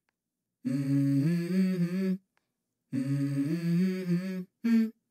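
Wordless hummed vocal melody in a low voice, sung in phrases of about a second and a half with short silent pauses between them, stepping between a few notes: the unaccompanied intro of a song.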